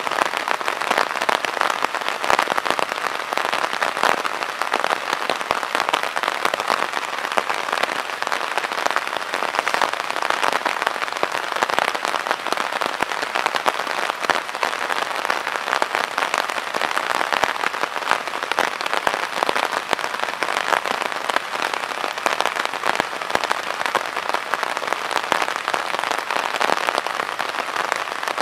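Steady rain falling, a dense, even patter of many small drops.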